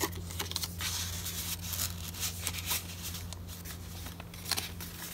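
Paper rustling and crinkling as hands handle a paper envelope and turn the stiff tea-stained pages of a handmade junk journal, with a sharper rustle near the end, over a steady low hum.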